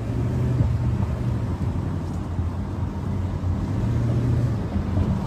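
Moving car's engine and road noise as a steady low rumble with a hum, heard from inside the vehicle.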